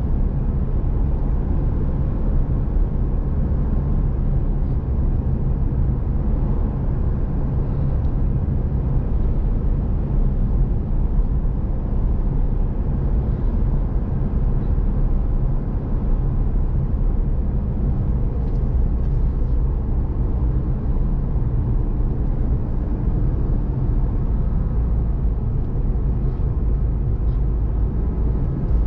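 Steady road noise of a vehicle driving at highway speed, heard from inside the cabin: an even low engine and tyre rumble that does not change.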